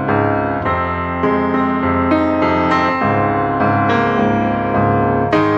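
Background piano music: a melody over sustained chords, with new notes struck every half second or so.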